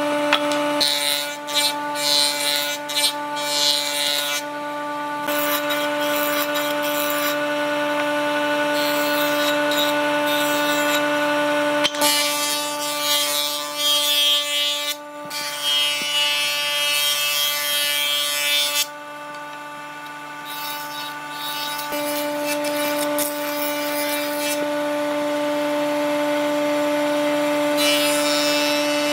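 An electric power tool running with a steady motor whine as it works wood. The rasping, grating noise of the tool biting into the wood comes and goes over the top.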